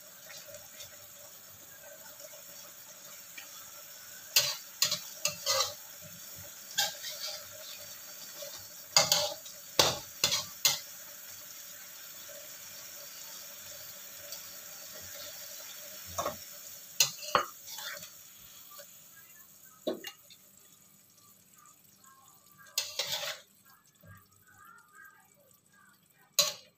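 Metal utensils clinking and scraping against a pan and dishes as the cooked chicken is dished up, a dozen or so sharp clinks in loose clusters. A steady sizzle runs underneath and drops away about nineteen seconds in.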